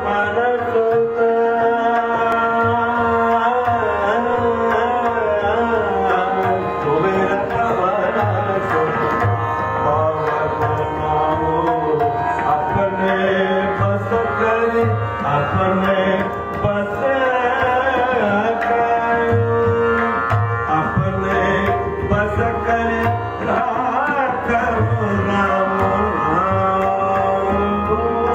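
Hindustani classical vocal performance: a man singing with ornamented, gliding phrases over held harmonium chords, with tabla accompaniment that includes deep bass strokes from the bayan.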